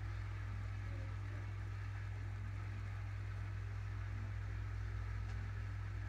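Steady low electrical hum with faint background hiss, and one faint tick about five seconds in.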